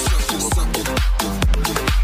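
Electronic dance music from a DJ mix, with a steady, driving kick drum beat.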